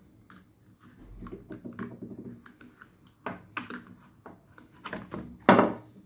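A capacitor being pried out of a pressure washer motor's plastic electrical box with a screwdriver and fingers: scattered clicks, scrapes and knocks of plastic and metal, with one louder knock about five and a half seconds in.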